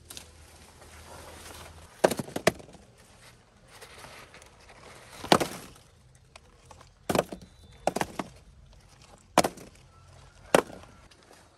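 Irregular sharp blows of a hand tool on bamboo: about eight strikes, including a quick pair about two seconds in and a quick pair near eight seconds in.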